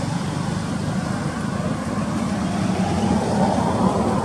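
An engine running steadily, a low pulsing hum that grows a little louder near the end.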